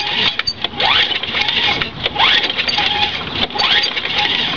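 Recoil pull-starter on a Tecumseh lawn mower engine, yanked three times about a second and a half apart, each pull a rising whir as the cold engine cranks over without firing.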